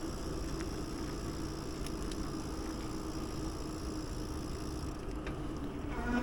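Steady riding noise from a moving bicycle: wind on the microphone and tyre rumble, with a faint steady hum underneath.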